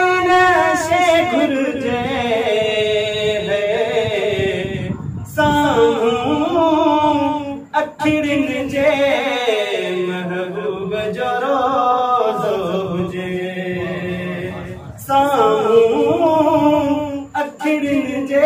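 A man singing a Sindhi naat in long, wavering, ornamented phrases that slide up and down in pitch, with short breaks between phrases. A low steady hum sits under the voice for a few seconds past the middle.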